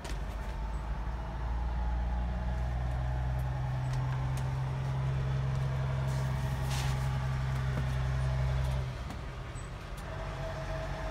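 A steady low mechanical hum that cuts off abruptly about nine seconds in, with a few light knocks.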